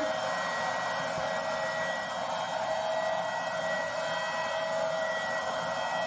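Vacuum cleaner running: a steady motor whine over a rush of air.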